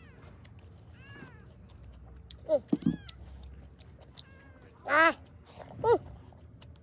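A cat meowing, about five short calls that rise and fall in pitch, the loudest about five seconds in.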